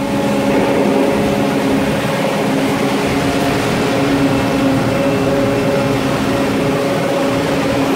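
Steady mechanical hum with a couple of steady droning tones over an even rushing noise.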